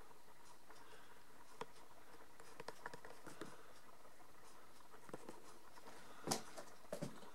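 Faint scattered clicks and light taps in a quiet small room, with a louder knock about six seconds in and two smaller ones just after.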